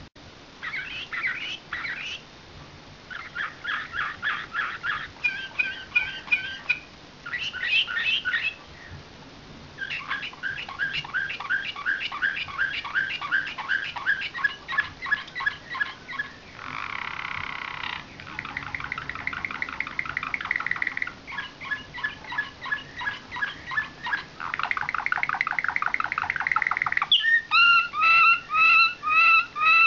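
Slavujar canary, a canary of the nightingale-song type, singing a long varied song of rapid trills and rolls in phrases broken by short pauses. Near the end it switches to loud, evenly repeated notes about two a second.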